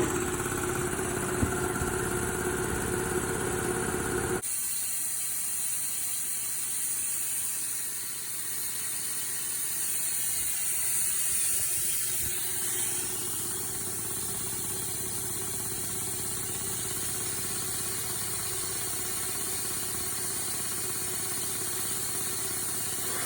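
A 7.5 hp two-cylinder two-stage electric air compressor running steadily under load. About four seconds in, the sound changes abruptly from a strong humming drone to a steadier, hissier run.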